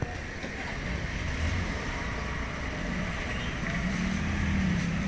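Small motorcycle and scooter engines running and pulling away as a stream of two-wheelers crosses the railway tracks, growing louder toward the end.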